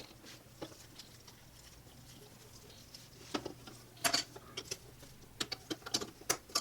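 Scattered light clicks and taps of small metal parts being handled and fitted together, with a faint steady hum underneath. The clicks are sparse at first and come more often after about three seconds.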